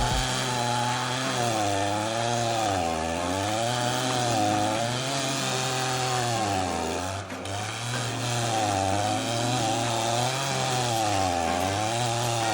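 Stihl chainsaw driving a stump-grinding attachment, cutting into a tree stump. The engine pitch drops and recovers about every two seconds as the cutter bogs under load and frees up.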